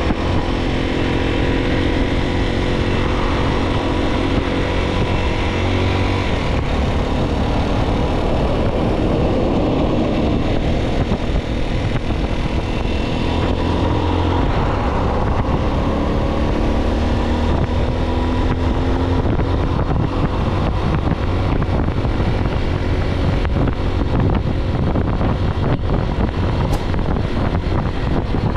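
Motorcycle engine pulling hard under acceleration, its pitch rising through several gears in the first half, then running steadier at cruising speed.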